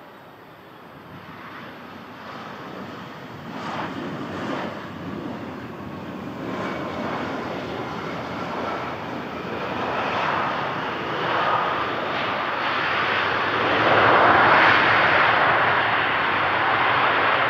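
Embraer E175 regional jet coming in to land, its twin GE CF34 turbofans growing steadily louder as it approaches, with a faint engine whine over the rushing jet noise. It is loudest about three seconds before the end.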